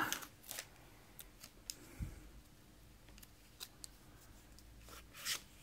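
Faint handling of a stack of Pokémon trading cards: scattered light clicks and flicks as the cards are moved in the hands, with a soft knock about two seconds in and a brief rustle near the end.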